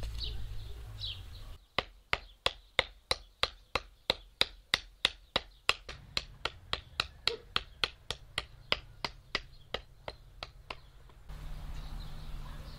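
Small hammer tapping on the wooden pole of a homemade wheel planting tool: a fast, even run of sharp strikes, about four a second, that grow fainter toward the end. Bird chirps are heard before the tapping starts.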